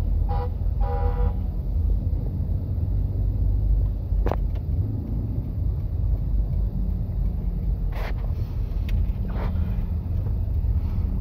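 Steady low rumble of a car's engine and tyres, heard from inside the cabin as it drives slowly. Three short pitched beeps sound in the first second and a half, and a few faint clicks come later.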